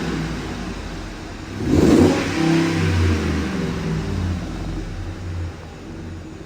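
A vehicle engine running, revved up once about two seconds in and then settling back.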